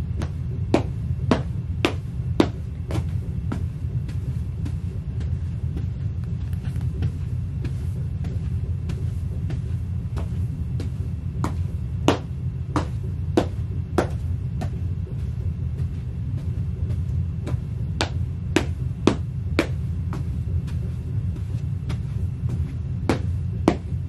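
Ugg sheepskin boots stomping on a plastic chair mat over carpet: irregular sharp slaps and thuds in clusters, with pauses of a few seconds between them. A steady low rumble runs underneath.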